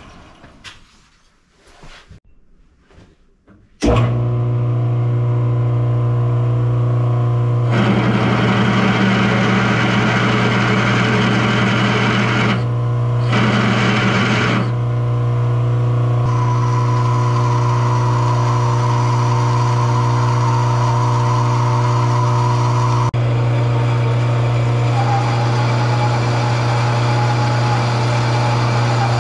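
Metal lathe running with a steady motor hum that starts abruptly about four seconds in, after a quieter stretch. From about eight seconds a tool cutting into the bore of a steel workpiece adds a rough hiss, broken by two short pauses, and a ringing tone joins the cut from about sixteen seconds in.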